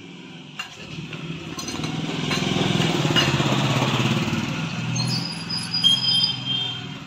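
A motorcycle passing by: the engine grows louder to a peak about three to four seconds in, then fades away.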